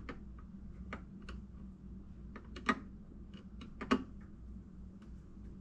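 Scattered light clicks and taps of metal hand work, with two louder knocks a little past the middle, as the disposal's mounting screws are tightened with a screwdriver.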